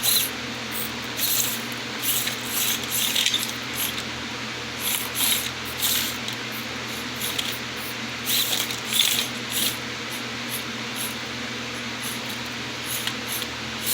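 Micro RC crawler's tiny electric motor and gears whirring in short, irregular throttle bursts.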